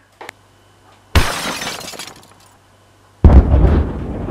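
Two sudden glassy crashes, like breaking glass, each fading out over about a second. The second is louder and heavier, with a deep thud at its start.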